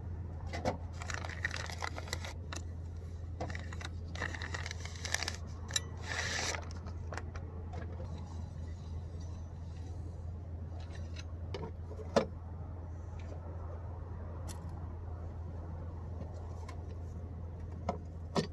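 Scattered metallic clinks and knocks with rustling, as a strut tower brace and its hardware are handled and fitted. There is a steady low hum underneath, and a sharper knock about twelve seconds in.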